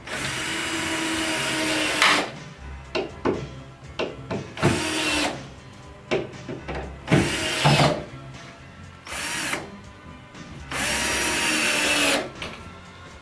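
Cordless drill driving screws into a cabinet's drawer-glide brackets and side panel, running in five bursts: long ones at the start and near the end, shorter ones between. Sharp clicks and knocks from handling the screws and drill fall between the bursts.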